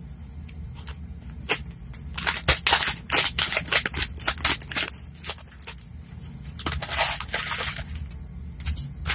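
Plastic instant-noodle packet crinkling and crackling as it is squeezed and handled. A dense run of sharp crackles comes from about two to five seconds in, with softer rustling later.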